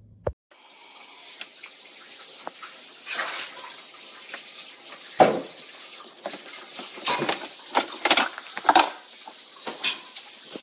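Nespresso Vertuo Next coffee machine running water through without a capsule: an uneven hiss of spurting, sputtering water with irregular louder gushes. It starts suddenly just after a click.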